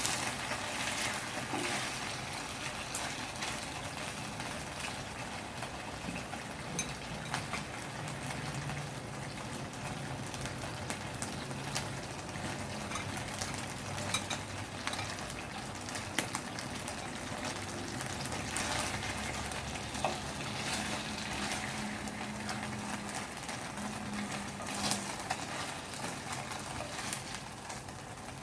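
Food sizzling steadily in a frying pan, with occasional light clicks from a utensil against the pan.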